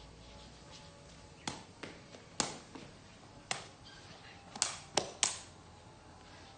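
A sepak takraw ball being kicked up repeatedly: about seven sharp hits at uneven intervals, the last three in quick succession.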